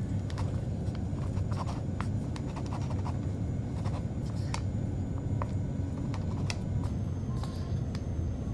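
Disposable wooden chopsticks stirring sauce into instant noodles in a paper cup bowl, with scattered light clicks and scratches of the sticks against the bowl over a steady low hum.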